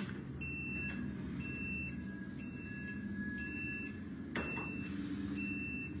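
Solax Transformer folding mobility scooter unfolding under remote control: its folding motor hums steadily while a high warning beep repeats about once a second. A click comes about four and a half seconds in.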